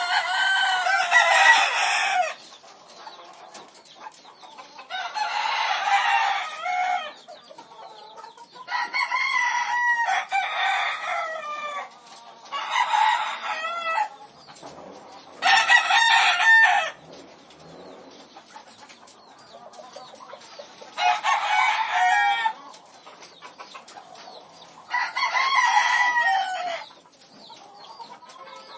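Chickens calling: about eight loud, drawn-out calls of one to two seconds each, spaced a few seconds apart, with quieter farmyard background between them.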